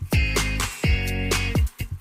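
Background music with a steady beat, funk-style with guitar.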